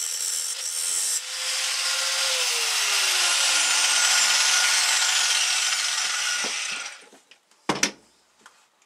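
Angle grinder grinding the cutting edge of a steel lawn mower blade, then switched off about two seconds in, its pitch falling steadily as the disc spins down over several seconds. A single thump near the end.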